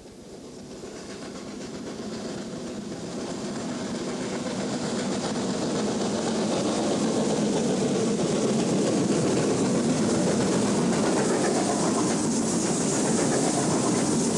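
Steam locomotive hauling a goods train and drawing closer, growing louder over the first six seconds or so and then holding steady, with a hiss of steam that strengthens near the end.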